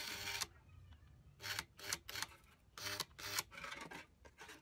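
Background music cuts off about half a second in. Then come a handful of short metallic clatters and knocks as a small electric gear motor is handled and set down on a stone slab.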